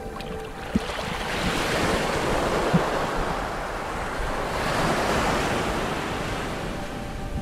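Surging sea water heard underwater through an action camera's housing: a rushing hiss that swells and fades twice, with a couple of dull knocks.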